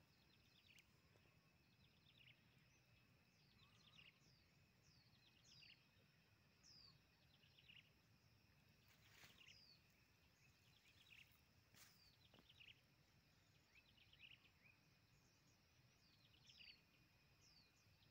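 Faint bird chirps: short, falling calls repeated about once a second, over a faint steady high-pitched tone. Two sharp clicks come near the middle.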